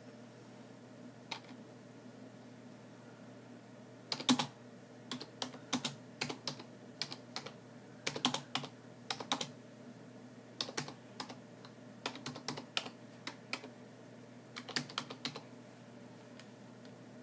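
Typing on a computer keyboard: irregular keystrokes in short bursts, starting about four seconds in and stopping a little before the end. A single click comes about a second in.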